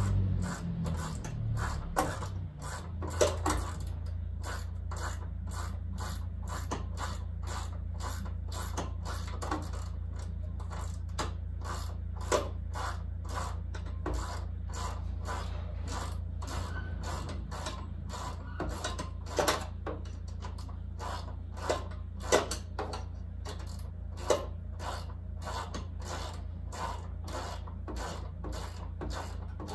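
Ratchet wrench clicking in a long run of short, regular clicks, a few a second, as bolts are undone with an 8 mm socket. A few clicks stand out louder, and a steady low hum runs underneath.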